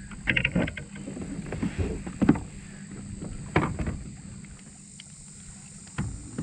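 Irregular knocks, taps and rattles against a kayak as a landed fish and tackle are handled aboard.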